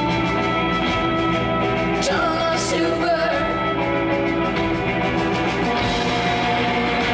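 Live rock band playing electric guitar and drums, with a woman's singing voice wavering briefly about two to three seconds in. About six seconds in the sound turns brighter and harsher as the guitar and cymbals come in harder.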